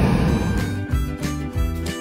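Road traffic noise cuts off about half a second in and background music with a steady beat takes over.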